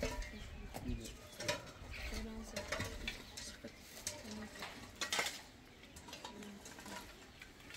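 Dishes and utensils clinking now and then, in short scattered clinks and knocks.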